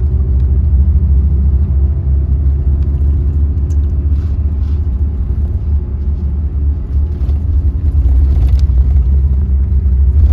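Steady low rumble of a Mercedes-Benz OH 1626 sleeper bus underway, with its engine drone and road noise heard from inside the cabin.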